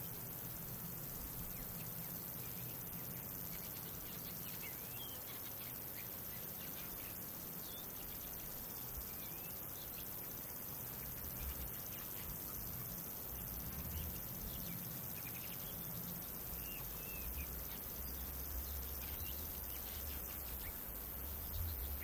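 Outdoor nature ambience: a steady high-pitched insect drone over a soft hiss, with a few short bird chirps scattered through it.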